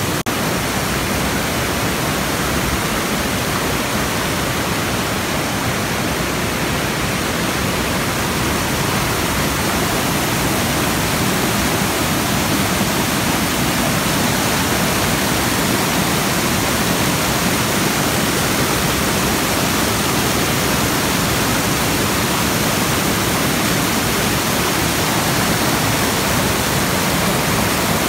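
Waterfall close by: a loud, steady rush of falling water, an even hiss with no breaks, loud enough to drown out a voice.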